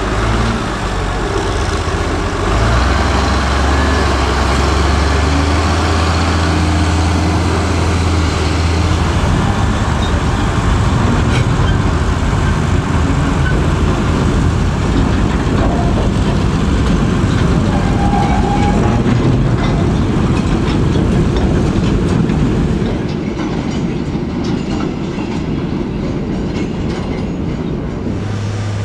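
Small narrow-gauge diesel peat locomotive running on light track: a steady low engine hum at first, then a dense, fast rattle of wheels and running gear on the rails that eases a little near the end.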